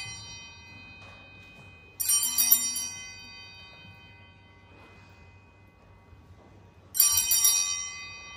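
Altar bells rung at the elevation during the consecration at Mass: two sudden bursts of jingling ringing, about two seconds in and again near the end, each dying away over a second or so. The fading tail of an earlier ring is heard at the start.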